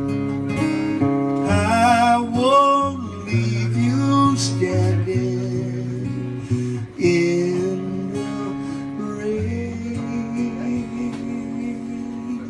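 Steel-string acoustic guitar strummed and picked through the song's ending, with a wordless sung line wavering over the chords in places.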